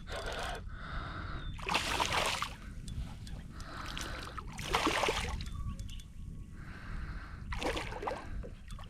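Water splashing in three separate surges about three seconds apart, over a steady low rumble.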